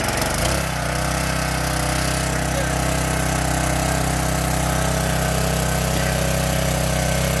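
Yamaha engine of a gas pressure washer running steadily, just after its first cold start, with a steady hiss over it. It cuts in suddenly and settles into an even running note within about a second.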